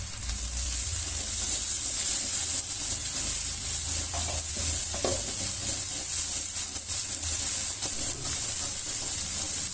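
Spice masala sizzling steadily in hot oil in a karai while it is stirred, just after chili powder, turmeric and salt have gone in.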